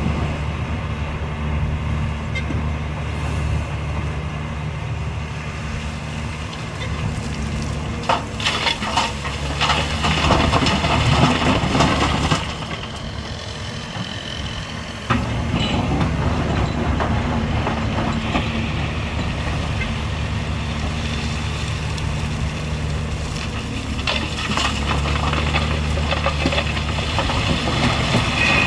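Heavy diesel construction machinery running steadily, with a stretch of scraping and clatter about eight to twelve seconds in. The sound drops off abruptly and comes back just as suddenly a few seconds later.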